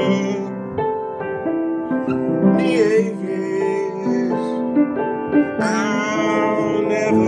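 Piano music with held chords, and a voice singing a few wavering, drawn-out notes about three seconds in and again near the end.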